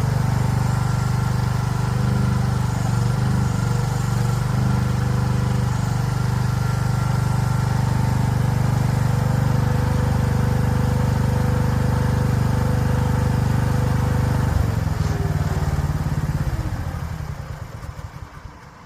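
Small engine of a compact tracked construction machine running steadily, then winding down and stopping near the end as it is switched off.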